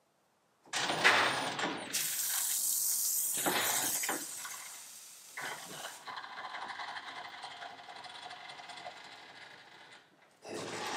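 Electric drive of a converted John Deere 140 garden tractor running as it moves: a loud hiss starts about a second in and cuts off sharply after about five seconds, then a quieter whine with hiss fades away near the end.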